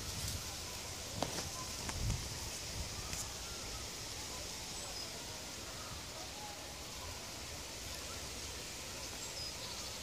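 Outdoor ambience: a steady hiss with faint, scattered bird chirps and a few soft clicks.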